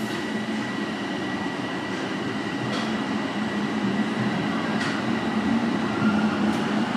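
Interior of a Toronto Rocket subway car running between stations: a steady rumble of wheels and traction equipment with a faint high steady whine. A few light clicks come through, and the noise grows slightly louder near the end.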